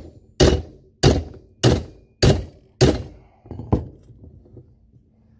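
Sharp blows struck one after another on an Allen key, about one every half second or so: six hard strikes, then two lighter ones. They are an attempt to shock loose a stuck Allen-head bolt on a barbell sleeve.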